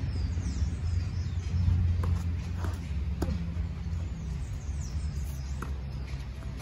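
Tennis ball struck back and forth with rackets in a rally: a few sharp, faint pocks a second or so apart, over a low steady rumble, with birds chirping.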